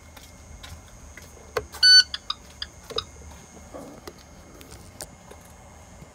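A single short, loud electronic beep from the dashboard of a 2019 IC CE school bus, with several sharp clicks just before and after it, over a faint steady high-pitched whine.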